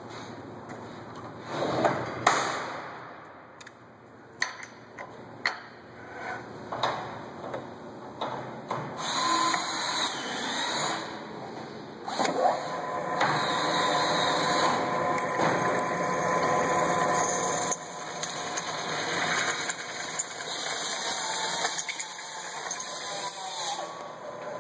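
Clausing 15 drill press running, its twist drill cutting through a metal strut channel guided by a drill-jig bushing. A few sharp knocks come in the first several seconds as the work is handled, then steady cutting noise with a faint whine until the end.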